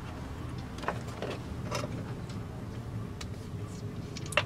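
Scattered light clicks and taps of small objects being handled on a wooden workbench, the sharpest near the end as a plastic tube of two-part epoxy is opened, over a low steady background hum.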